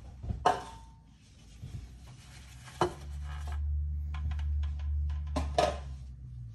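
Metal cooking pans being picked up and moved about on a countertop: sharp clinks about half a second in, near three seconds and near the end, with a steady low hum from about three seconds on.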